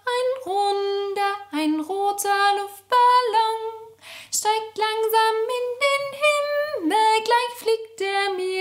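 A woman singing a German children's action song solo and unaccompanied, in held notes that step up and down between short breaths.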